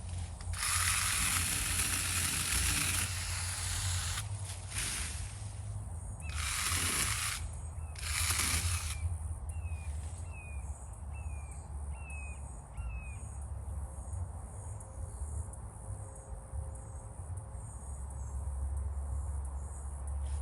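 Three bursts of rustling noise, and in the middle a bird calling a run of short, falling chirps about once a second, over a steady low hum.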